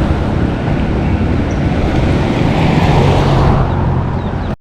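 Road traffic noise: a motor vehicle's engine running close by over a steady rush, cutting off suddenly at the end.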